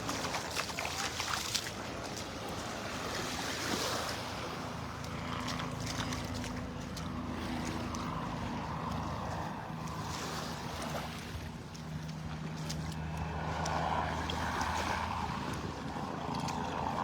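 Gulf surf washing on the beach and wind on the microphone, under a steady low engine hum from a passing motor.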